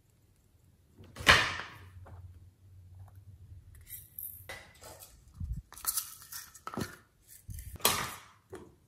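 A run of clinks, rattles and taps from small objects being handled on a tabletop beside a glass dish: a little glitter bottle and plastic toys. The loudest is a little over a second in and another comes near the end.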